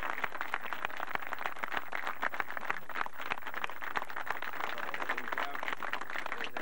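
A small group of people applauding, many hand claps in a dense, steady patter.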